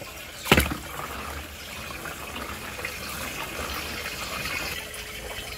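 Water rushing steadily down a whirlpool drain hole, with one sharp splash about half a second in as a small die-cast toy tow truck is dropped into the vortex.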